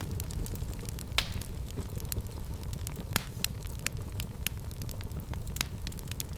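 Fire burning in a fireplace: a low steady rumble of flames with frequent sharp crackles and pops, two of them louder, about a second in and about three seconds in.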